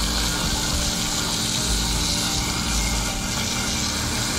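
Pistol-grip garden hose nozzle spraying water onto a bicycle's drivetrain, a steady hiss.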